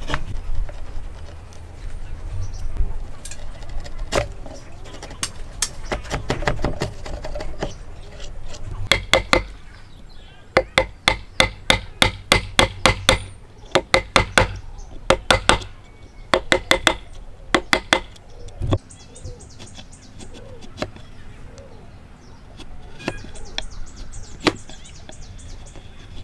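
Hammer blows on a chisel cutting into wood: scattered strikes at first, then quick runs of several sharp taps a second for a stretch in the middle. After that the chisel pares the wood more quietly, with a few more taps.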